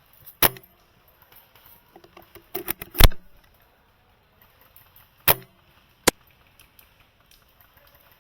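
Sharp mechanical clacks from a bolt-action airsoft sniper rifle, shots and bolt cycling: one clack, then a quick run of small metallic clicks leading into the loudest clack about three seconds in, then two more clacks a couple of seconds later.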